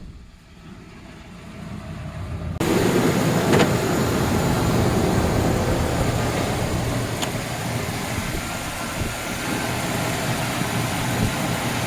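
Old truck engine idling steadily just after a cold-morning start, running smoothly, just purring away. About two and a half seconds in, the sound suddenly gets louder and fuller.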